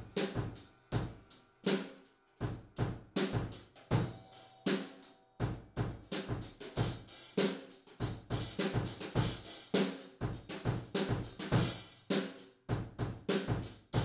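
Outro music with a steady drum-kit beat.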